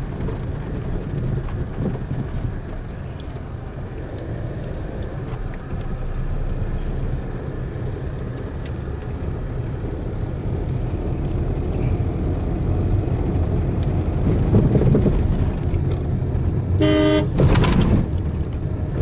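Steady engine and tyre rumble heard from inside a moving car. A vehicle horn gives a short honk near the end.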